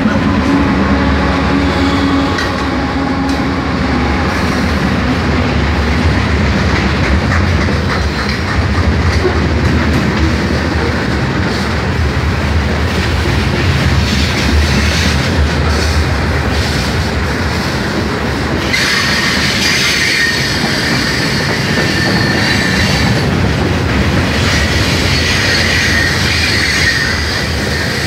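Freight cars of a long mixed manifest train rolling past close by: a steady low rumble and clatter of steel wheels on the rails. About two-thirds of the way in, a high-pitched wheel squeal joins and carries on.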